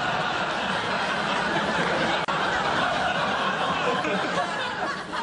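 Studio audience laughing: a sustained wave of crowd laughter that eases off near the end.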